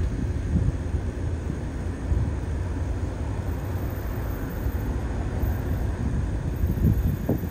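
Low, uneven outdoor rumble with no clear single source, with a brief rising sound near the end.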